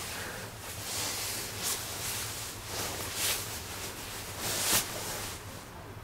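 Duvet fabric rustling close to the microphone: a muffled hissing noise that swells and fades unevenly, with the loudest swells about every second and a half.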